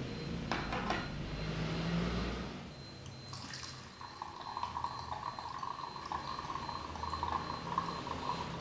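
A click as the Hario Switch valve opens, then brewed coffee drains out of the dripper and trickles steadily into the glass server below.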